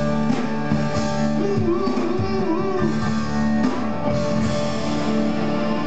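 Live rock band playing with electric guitar, a steady full-band sound with sustained notes and a few pitch glides in the middle.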